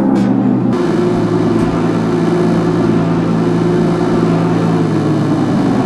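Synth notes played through the Megabinson tape delay cut off under a second in. They give way to the homemade rotating-drum tape machine running on its own: a steady mechanical whirr with a low hum.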